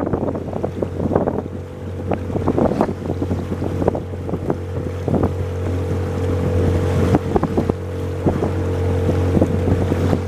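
A boat's motor running at a steady hum, with water splashing against the hull and wind buffeting the microphone.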